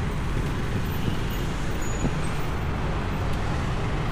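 Steady road and traffic noise from travelling along a city street, a continuous low rumble with no distinct events.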